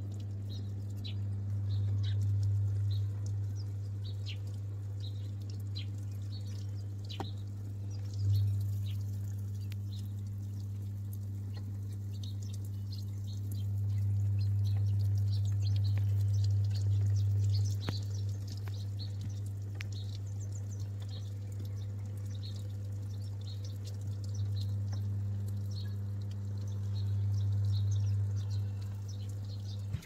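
Samsung top-load washing machine filling: water pours into the drum onto the clothes with light splashing, over a steady low hum from the machine that swells a few times.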